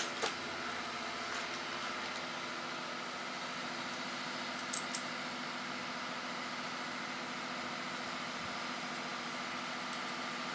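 Steady machine hum with several held tones, like a fan or other motor running in a workshop, with a few light clicks just after the start and twice about five seconds in.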